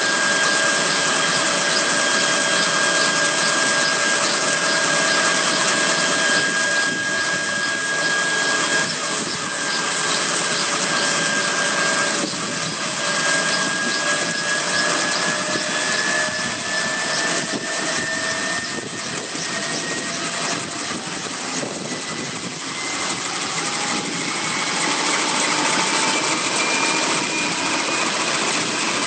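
Intermeshing-rotor helicopter running on the ground with its rotors turning: a steady turbine whine over a rushing noise. The whine rises in pitch about halfway through and rises again near the end.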